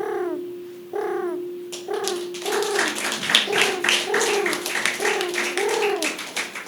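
A woman imitating a pigeon with her voice: a string of short cooing calls, each rising and falling in pitch, about one a second. From about two seconds in, clapping runs under the coos until near the end.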